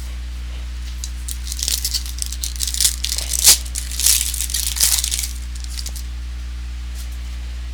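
Foil trading-card pack wrapper being torn open and crinkled by hand, a run of crackling tears for about four seconds, loudest near the middle, over a steady low electrical hum.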